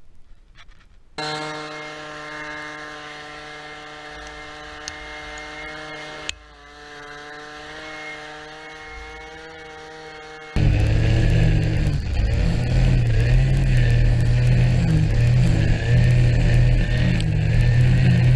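Cordless leaf blower running with a steady whine, dipping briefly partway through. About ten seconds in, a much louder string trimmer takes over, running with an uneven low drone.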